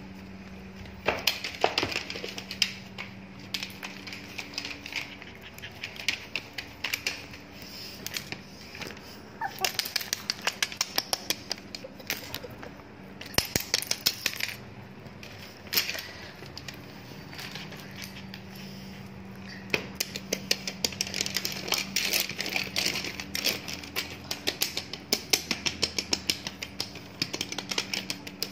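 A puppy's claws clicking and skittering on a hard tiled floor and a slat mat as it runs and plays, in quick runs of sharp taps with pauses between.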